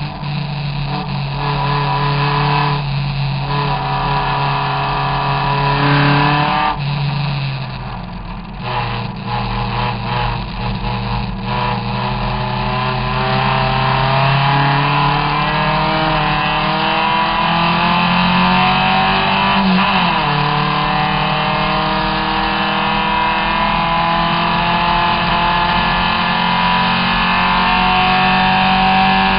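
Triumph TR3S tribute race car's engine heard from the open cockpit at racing speed. About seven seconds in the note drops as the driver lifts for a corner. It then pulls with a long rising note, with a quick gear change about twenty seconds in, and keeps rising.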